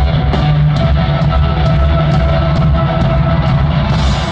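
Rock band playing live in an arena: electric guitar over bass and a steady drum beat.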